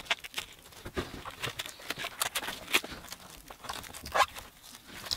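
Thin plastic protective film being peeled off a set-top box's casing, crinkling and crackling unevenly as it tears free.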